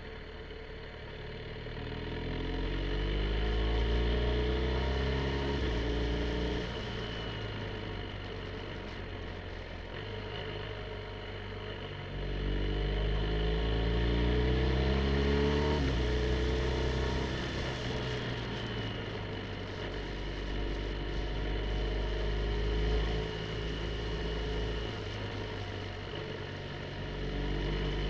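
BMW R1250 GSA's boxer-twin engine accelerating along a winding road, its note climbing in steps as it runs through the gears, in three spells: a few seconds in, about halfway, and near the end, easing off in between. Wind and road noise hiss underneath.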